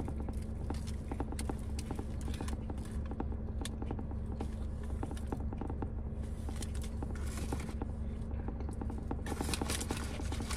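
Close-up chewing of a toasted ham sub on white bread: a dense, irregular run of small mouth clicks over a steady low hum.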